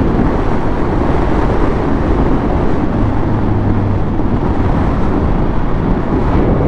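Triumph Speed Triple 1200 RS's three-cylinder engine running at a steady road speed, mixed with wind rushing over the microphone; the level holds even throughout.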